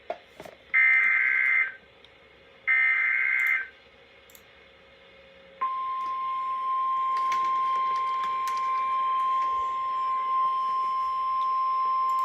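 Emergency Alert System broadcast: two bursts of warbling digital SAME header data, each about a second long and two seconds apart, then, about five and a half seconds in, the steady single-pitch NOAA Weather Radio 1050 Hz attention tone, which holds on. This is the alert signal that announces a severe thunderstorm warning.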